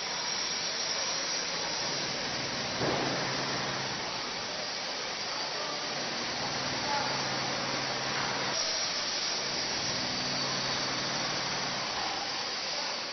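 Steady hissing construction-site noise with a low machine hum that fades in and out, and a brief knock about three seconds in.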